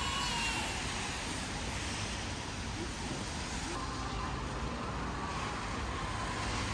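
Steady city street traffic noise: vehicles passing on a wet road.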